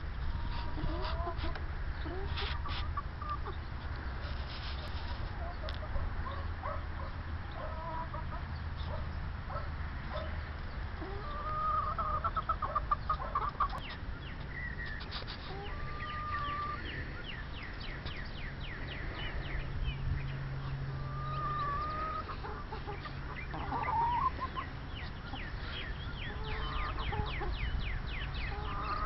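Backyard hens clucking and making short calls on and off, with a quick run of clucks about twelve seconds in and a louder call near the end.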